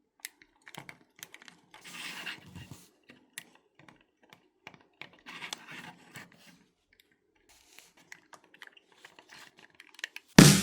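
Hand tools working on wood: scattered light taps and clicks, with two short scraping passes. Loud music with a drum beat comes in near the end.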